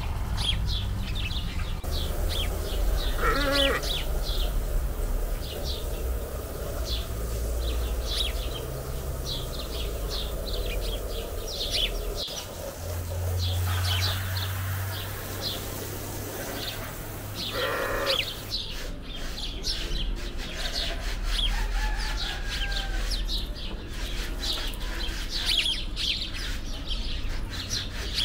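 Small birds chirping over and over, with a few livestock bleats: one about three seconds in and others around fourteen and eighteen seconds.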